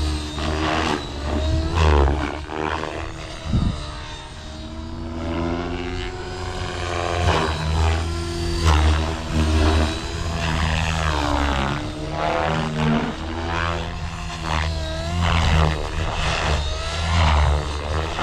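Blade Fusion 550 electric R/C helicopter in flight, its rotor and motor whine rising and falling in pitch again and again as it manoeuvres and passes, over a low rumble that swells and fades.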